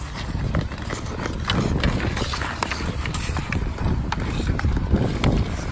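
Ice hockey play: skate blades scraping the ice, with several sharp clacks of sticks and puck scattered through, over a steady low rumble.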